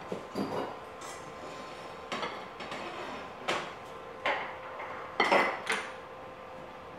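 Bamboo steamer and its plate being shifted and set down on a granite countertop: a series of light knocks and clatters, the loudest a quick double clatter a little after five seconds in.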